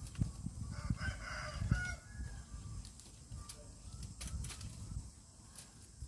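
A rooster crows once, starting about a second in. Underneath, bamboo brush is rustling and cracking as someone pushes through it, with a low rumble of wind or handling noise.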